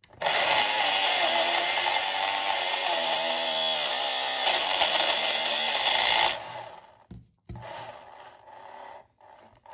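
A Carrera slot car's motor spins its plastic rear wheel while a hand-held tool is pressed against it, giving a loud, grinding scrape whose pitch wavers under the load as the wheel is machined true and its dimples are cut away. The scrape cuts off abruptly a little over six seconds in, and quieter, intermittent noise follows.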